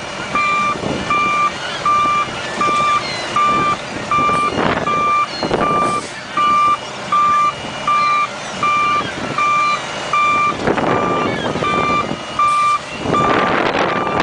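Garbage truck's backup alarm beeping steadily about twice a second as the truck reverses, over engine and wind noise that swells a few times and grows louder near the end.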